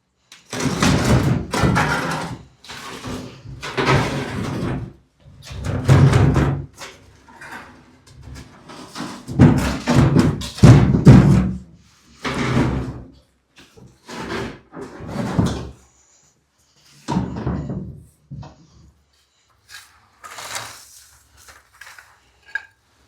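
Irregular thumps, bangs and knocks in an echoing brick room as furniture is shoved across the floor and rubbish is cleared out, coming thick and loud at first and sparser for the last several seconds.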